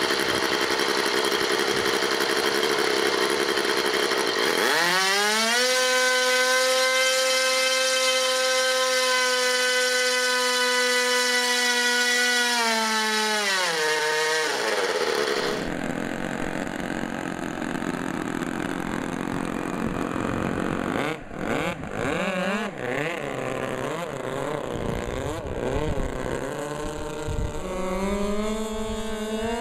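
O.S. 49-PI single-rotor Wankel model engine running on a test stand. About four seconds in it revs up to a high, steady note, holds it, then drops back down about fourteen seconds in. Then the O.S. .30 Wankel rotary engines of a radio-controlled A-26 Invader model plane run with a wavering pitch, rising again near the end.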